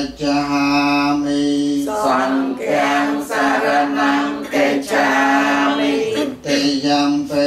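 Buddhist congregation chanting Pali verses in unison on a steady held pitch, with short pauses for breath about two seconds in and again near six seconds.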